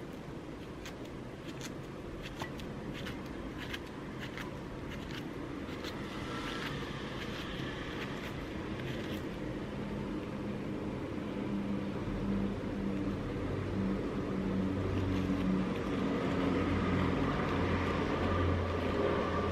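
A small kitchen knife cutting through a peeled banana held in the palm: a series of soft, separate clicks as the blade goes through each slice. In the second half a low hum comes in and grows steadily louder.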